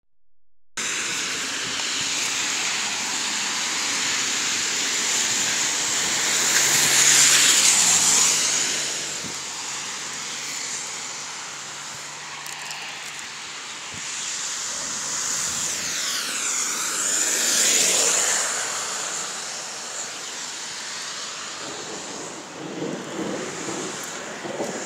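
Outdoor rushing hiss that swells twice as vehicles pass, around seven seconds in and again around seventeen seconds, the second pass with a sweeping whoosh. Uneven rustling near the end.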